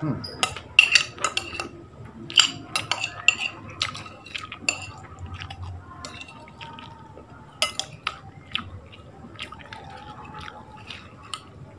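Close-up eating sounds: a run of wet mouth smacks and clicks as food is picked off a plastic container with the fingers, busiest in the first five seconds and thinning out after one sharp smack about eight seconds in.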